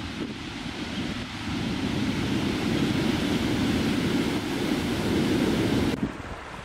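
Heavy ocean surf breaking and washing up the beach, with wind rumbling on the microphone. It drops off sharply about six seconds in to a quieter wind rumble.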